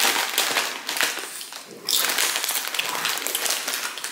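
Grocery bags and plastic packaging rustling and crinkling as groceries are unpacked, with light taps of items set down on the counter.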